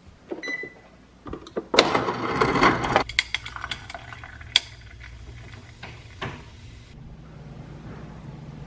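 A refrigerator door dispenser drops ice into a glass with a brief loud rattle. A canned drink is then poured over the ice, fizzing with small scattered clicks.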